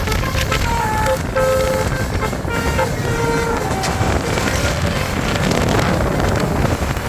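Basuri 'telolet' multi-tone bus horn playing a quick tune of short notes stepping up and down in pitch for the first three seconds or so. After that the notes give way to a steady rush of bus engine and wind noise.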